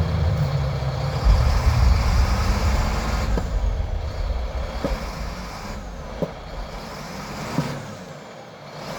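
Heavy forestry machine's diesel engine running with a low, wavering drone that slowly gets quieter, with a few short knocks over the second half.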